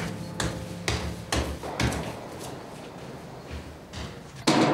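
Footsteps climbing a flight of stairs, about two steps a second, growing fainter as they move away. Near the end comes one louder door clunk.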